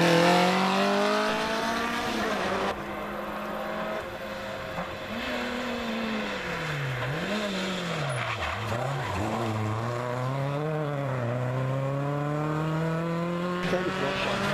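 Rally car engines at full effort. One car goes past loud at the start and accelerates away, its pitch rising. Then a second car approaches, its engine note dropping and picking up several times as it brakes and changes gear, before climbing steadily as it draws near.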